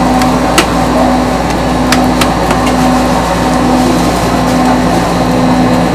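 Metal tongs clicking a few times against a perforated metal tray as toppings are picked up, over a loud, steady machine hum with a low tone that pulses on and off in an even rhythm.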